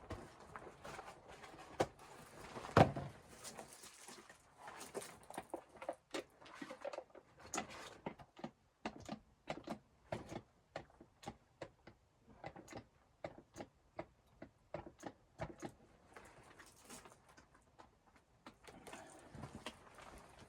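A long run of irregular knocks and clicks, handling noises with no steady rhythm, with one louder knock about three seconds in.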